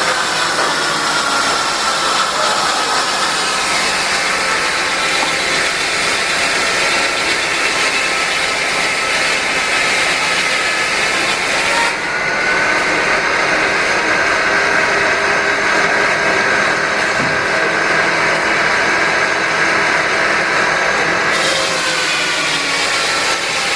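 Sawmill belt-driven by a Peerless Z3 steam traction engine, running steadily: a loud whine over a dense rushing noise. The high hiss drops away about halfway through and comes back near the end.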